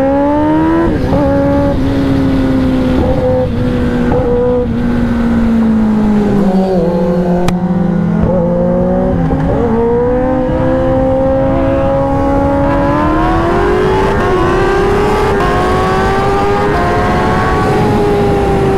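Kawasaki ZX-10R's inline-four engine pulling hard at speed, heard from the rider's seat. Its pitch climbs near the start, sags for a few seconds midway, then climbs steadily again, with wind rushing over the microphone.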